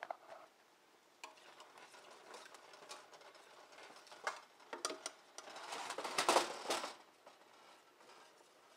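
Whisk stirring and scraping thick gravy in a thin-bottomed stainless-steel turkey roaster, with the gravy kept moving so it doesn't scorch as it thickens. Faint at first, with a louder run of scraping and clinks near the end before it stops.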